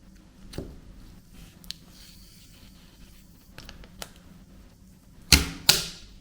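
Washi tape torn against the scalloped edge of a 3D-printed washi cutter: two short, loud rips near the end, after a few faint clicks and taps of handling.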